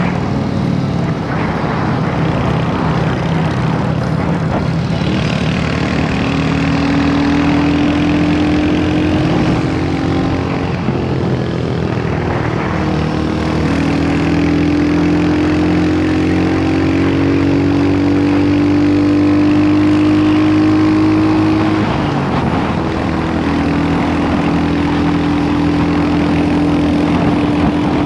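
Royal Enfield Hunter 350's single-cylinder engine running under way, its note climbing slowly as it pulls. The note dips about eleven seconds in and drops sharply about three-quarters through, as on a gear change or easing off the throttle, then holds steady. Wind and road rush run underneath.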